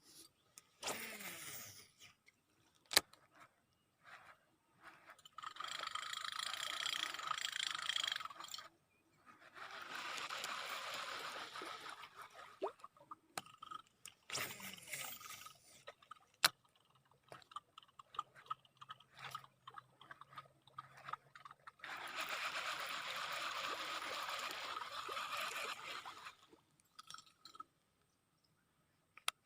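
Baitcasting reel in use while lure fishing: several separate stretches of steady whirring, each lasting a few seconds, with a few sharp clicks between them.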